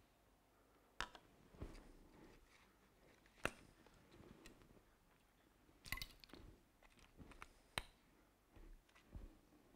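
Near silence: room tone with several faint, scattered clicks and knocks.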